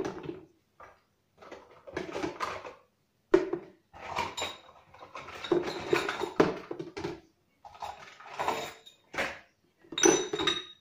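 Plastic baby bottles and parts clattering and knocking as they are set into the plastic basket of a Chicco steam sterilizer, in irregular bursts with a sharp knock about three seconds in.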